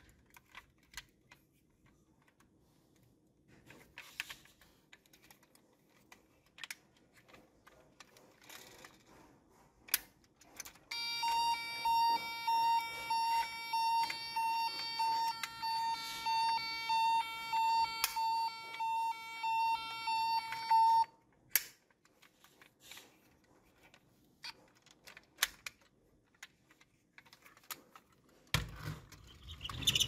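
A toy ambulance's electronic siren sounds for about ten seconds, starting about a third of the way in. It is a loud, evenly pulsing beeping tone that cuts off suddenly. Around it are light plastic clicks from handling the toy, and a soft thump near the end as it is set down.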